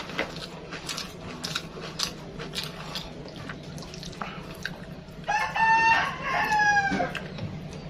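A rooster crowing once, loud, a little over five seconds in, in a long two-part call. Before it, small clicks and mouth noises of someone eating a meal by hand.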